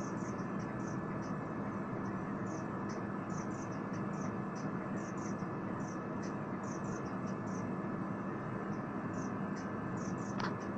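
Faint insect chirping: short, high chirps in irregular groups of a few at a time, over a steady background hiss and low hum.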